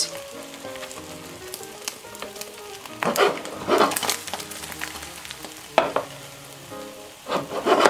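Beaten eggs sizzling in a hot oiled nonstick frying pan, a steady hiss broken by a few brief scrapes and knocks as a plastic spatula works the omelette's edges and the pan is moved on the hob.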